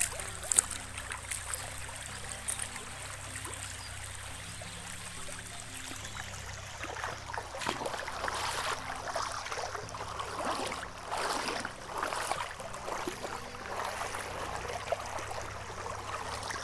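Fast-flowing river water rushing and swirling past the bank close to the water's surface. It grows splashier about halfway through.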